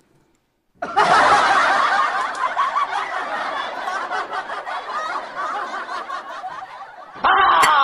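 Canned audience laughter, many people laughing together, starting abruptly about a second in and cutting off sharply near the end.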